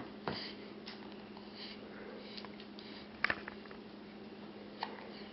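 Newborn baby's hiccups: a few short, sudden hics, the loudest a quick double one about three seconds in, over a steady low hum.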